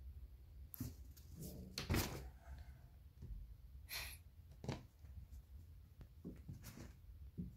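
A few scattered soft knocks and thumps, the strongest about two seconds in, with a brief rustle about four seconds in.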